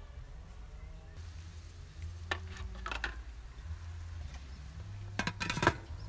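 A domed aluminium lid clattering onto an aluminium steamer pot: a quick run of sharp metal clicks and knocks near the end, the last the loudest. A few lighter clicks come about two to three seconds in, over a low steady rumble.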